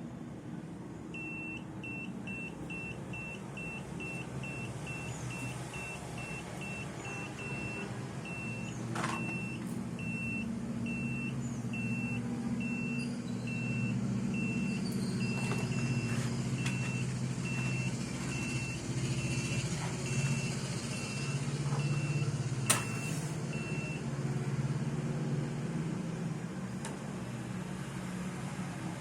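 Carbon monoxide meter beeping: a long run of short high beeps, quick at first and then spacing out, stopping a few seconds before the end. Under it is a steady low hum, with a sharp click near the end of the beeping.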